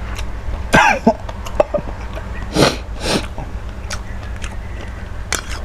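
A man eating very spicy curry noodles clears his throat and then gives a quick double cough, brought on by the chilli heat, over a steady low hum.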